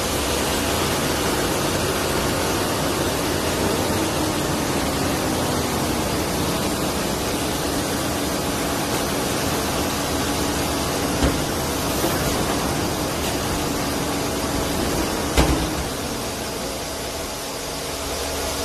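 Knuckle-crane recycling truck running, its engine and crane hydraulics giving a steady hum with a faint whine. A small knock about 11 seconds in and a louder metal clunk about 15 seconds in.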